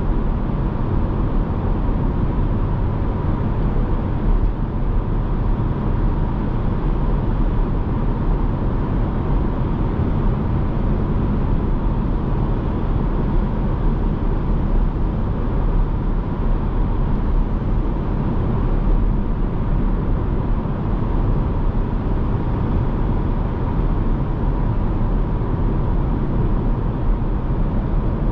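BMW 220d xDrive F44 Gran Coupe cruising: a steady rumble of tyres, wind and its diesel engine, with a faint steady high tone running through it.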